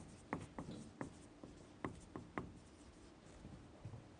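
Marker writing on a whiteboard: a quick, irregular run of short taps and scratching strokes, thinning out in the second half.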